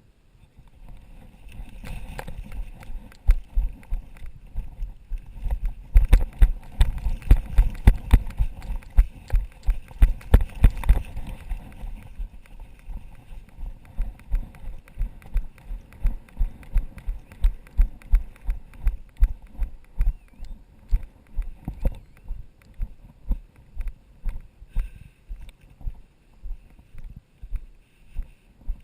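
Footsteps of a person running: a steady run of heavy thuds, about two a second, louder and closer together in the first half.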